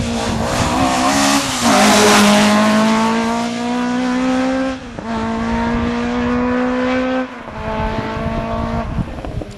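Rally car engine at full throttle, accelerating hard through the gears. The pitch climbs in each gear and drops at upshifts about 1.5, 5 and 7 seconds in. It is loudest about two seconds in.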